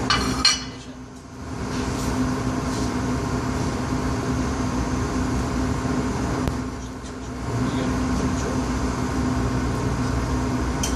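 Steady rumble and low hum of a commercial kitchen's running equipment, dipping briefly about a second in and again around seven seconds in.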